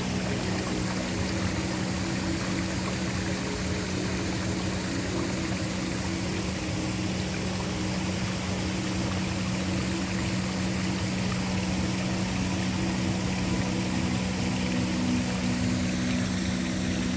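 Waterfall rushing steadily, with a low sustained drone of several held notes underneath; one of the low notes swells near the end.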